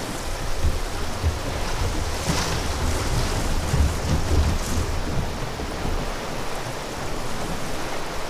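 Fast river water rushing through a riffle around a drift boat, with gusts of wind buffeting the microphone.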